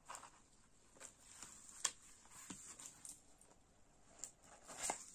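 Faint rustling and crinkling of a diamond painting canvas and its protective sheet being handled, with a few sharper clicks, the loudest a little under two seconds in and just before five seconds.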